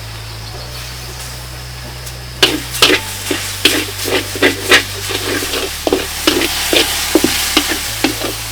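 A kitchen utensil knocking repeatedly against cookware, starting a few seconds in at about two or three knocks a second, over a steady hiss as of food stirred in a hot pan.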